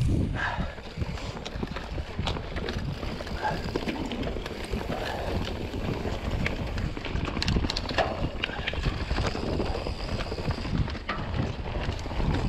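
Polygon T8 full-suspension mountain bike ridden down a dirt singletrack: a steady rumble of tyres and wind on the microphone, with frequent clicks and rattles from the bike jolting over roots and rocks.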